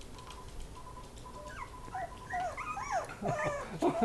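Miniature Pinscher puppies whimpering and whining: short, high, rising-and-falling cries, several overlapping, that begin about a second and a half in and grow louder toward the end.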